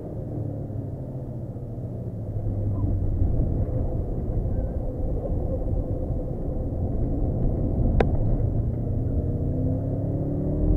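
Car engine and tyre/road noise heard from inside the cabin while driving at speed: a steady low rumble that gets louder about two seconds in. A single sharp click about eight seconds in.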